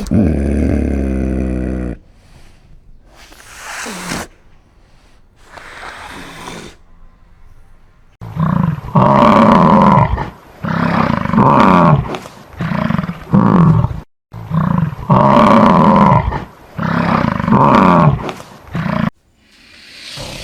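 A large farm animal calling loudly, with a long series of repeated calls in the second half.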